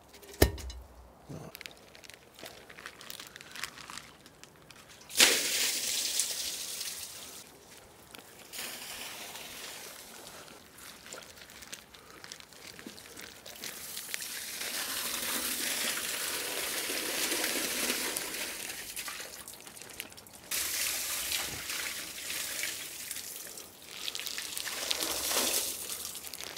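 Rainwater pouring out of a flexible plastic temporary downpipe and splashing down into an open manhole chamber. The pipe had filled with water backed up behind a blockage at its end, and it is being emptied. There is a knock just after the start; the flow begins with a sudden rush about five seconds in, then swells and eases as the pipe is lifted and drained.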